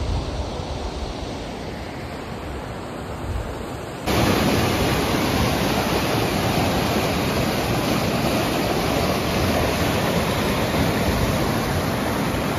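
Fast mountain river rushing over boulders in white-water rapids, a steady rush of water. It becomes abruptly louder about four seconds in.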